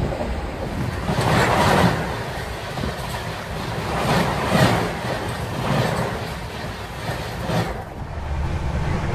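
Karnataka Express train running on the line, a steady rumble of wheels on rails with about four swells of rattling rush that rise and fall.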